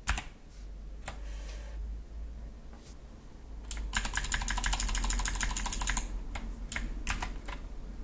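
Key presses on an Ajazz AK33 mechanical keyboard with clicky blue-style switches: a few separate clicks, then a fast run of clicks lasting about two seconds around the middle, then a few more single presses.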